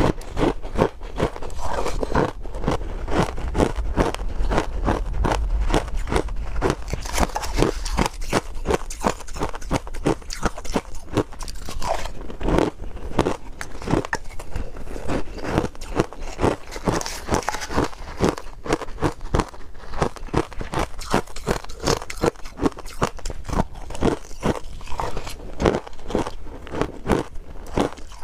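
Crushed ice being bitten and chewed in the mouth, close to the microphone: a continuous run of rapid, crisp crunches, several a second.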